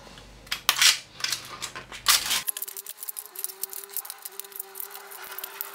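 Thin 3D-printed plastic support lines and skirt being snapped and peeled off a printed model by hand: a few sharp snaps in the first two seconds, then, after an abrupt change about two and a half seconds in, a fast, fast-forwarded run of small clicks and crackles over a faint steady hum.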